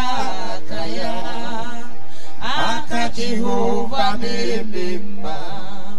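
Church worship music: voices singing a worship chant over sustained instrumental tones.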